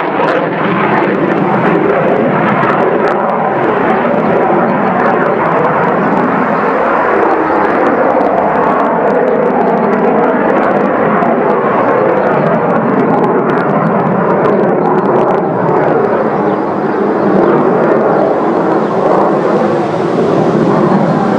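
Saab JAS 39 Gripen single-engine fighter flying aerobatics overhead: a loud, steady jet engine roar. Its hiss dims in the middle and brightens again near the end as the jet moves through its manoeuvres.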